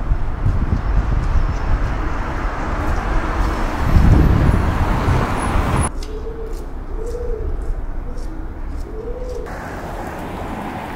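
Loud street noise with a low rumble that swells about four seconds in, then drops away suddenly. Over a quieter background, a pigeon coos several times in soft, rounded notes.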